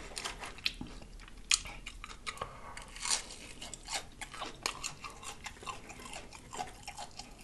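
A person chewing and biting into crunchy fried fish: irregular crisp crunches and wet mouth sounds, with a few sharper crunches scattered through.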